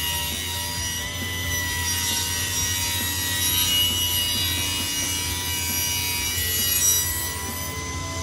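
Cabinet table saw ripping a small wooden beam fed along the fence, the spinning blade cutting steadily through the wood over the motor's steady whine. The audio is played back at 1.5x speed, raising its pitch.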